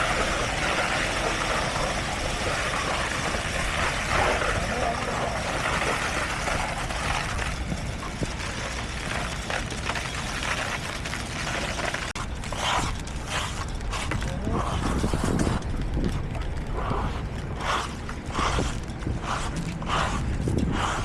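Heavy construction machinery running with a steady low rumble. About halfway through, a regular clanking starts, roughly one to two knocks a second.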